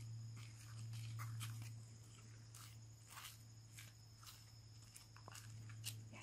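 Faint, scattered footsteps scuffing on a paved driveway, over a steady low hum.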